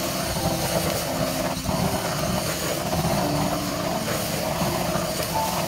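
Handheld butane blowtorch flame burning with a steady rushing rumble over a wok of stir-fried shrimp and vegetables, torching the food for a smoky fire flavour, with the pan sizzling beneath.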